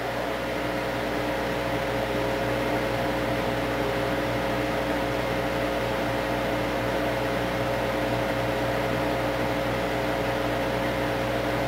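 Restored 1925 Oriole Model 7B battery radio playing through its Peerless loudspeaker, giving a steady static hiss with a faint steady hum as it is tuned across an empty stretch of the AM band, with no station coming in.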